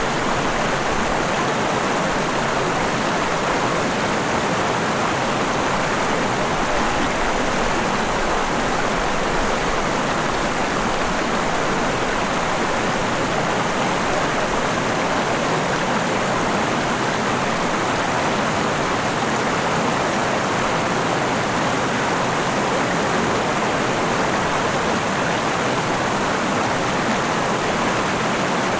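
Mountain river or stream running over rocks: a steady, even rush of flowing water.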